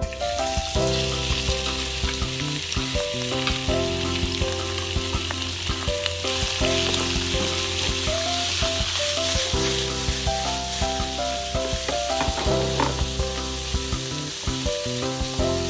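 Diced ostrich meat sizzling in hot olive oil in a frying pan as it is seared over high heat, with a spatula scraping and clicking as it spreads the pieces. Background music plays throughout.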